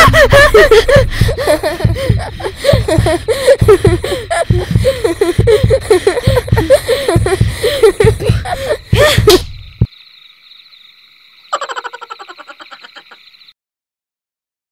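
A woman screaming and crying out in fright, in rapid repeated cries that cut off suddenly about nine and a half seconds in. A faint high steady tone follows for a few seconds.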